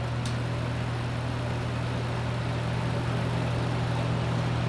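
Lakewood T12 twin box fan running on high, its two small GE motors giving a steady electrical hum under the rush of air from the two 12-inch blades, creeping slightly louder as it comes up to speed. Not the quietest fan.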